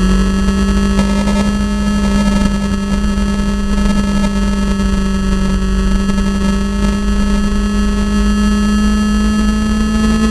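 Onboard sound of a vehicle's engine held at high revs, its pitch climbing slowly and steadily, under a heavy rush of wind noise on the microphone.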